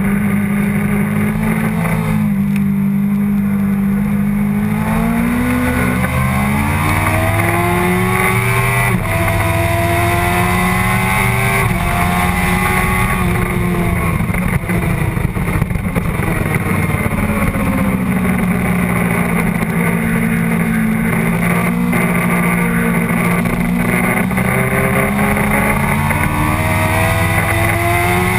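Sportbike engine at racing speed, heard from a camera mounted on the bike: the revs hold, climb hard from about five seconds in with a gear change near nine seconds, fall away as the bike slows for a corner, then climb again over the last few seconds.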